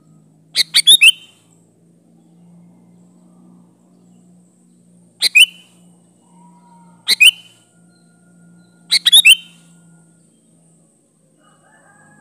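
Sooty-headed bulbul (kutilang) calling: four short, loud bursts of quick chirping notes, spaced a few seconds apart, over a faint steady low hum.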